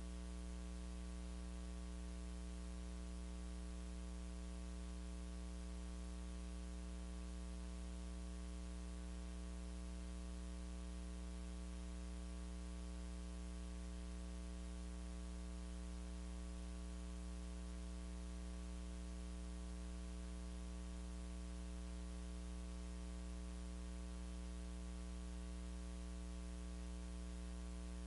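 Steady electrical mains hum, a low buzz with a layer of hiss, unchanging; no singing or music comes through.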